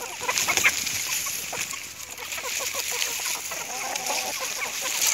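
A flock of free-range hens clucking busily over freshly cut grass leaves, many short overlapping clucks, with the rustle of the leaves as the birds peck and tug at them.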